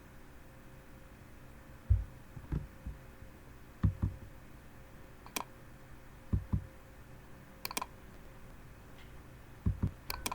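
Computer mouse clicking now and then, several clicks in quick pairs, over a faint steady hum.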